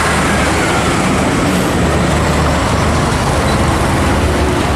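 A motor vehicle's engine running steadily: a low rumble under a loud rushing noise, which cuts off suddenly just after the end.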